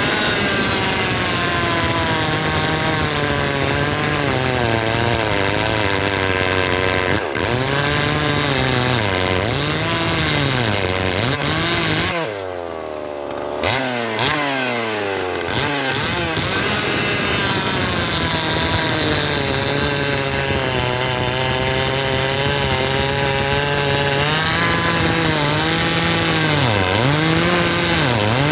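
Modded, ported Partner Formula 500 two-stroke chainsaw running at high revs through a cut, its engine note dipping and recovering again and again as the chain loads in the wood. About twelve seconds in the revs fall away briefly before it pulls back up.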